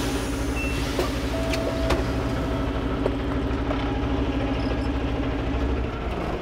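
Kenworth W900L semi truck's diesel engine running steadily, with a few light clicks; the low drone drops away near the end.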